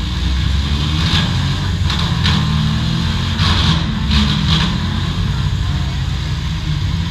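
V8 demolition derby cars' engines running hard together, with several short crashes between about one and five seconds in.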